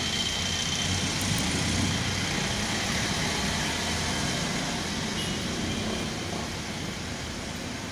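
Steady background noise: a low rumble with hiss, slowly easing off toward the end, with no distinct events.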